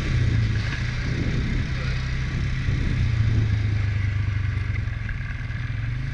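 ATV engine running steadily while riding, with a low, even drone that eases off slightly about five seconds in.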